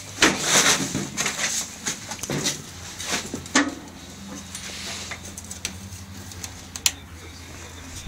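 Rustling and scattered light knocks of camera handling, the lens covered, over a faint steady low hum.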